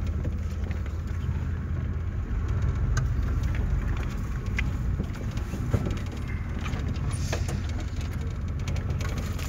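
Vehicle driving slowly over a rough sandy dirt track, heard from inside the cab: a steady low engine and road rumble with scattered knocks and rattles as it rides over the bumps.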